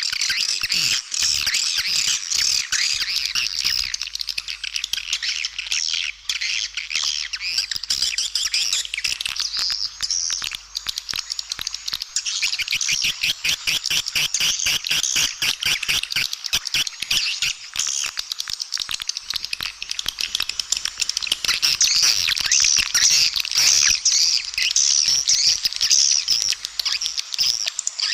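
Recorded swiftlet calls played as a lure track to draw swiftlets to a nesting house: a dense, continuous twittering of many rapid, overlapping chirps, louder in the last third.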